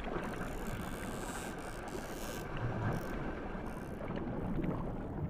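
Underwater sea ambience: a steady rush of water noise with a low rumble and scattered faint clicks.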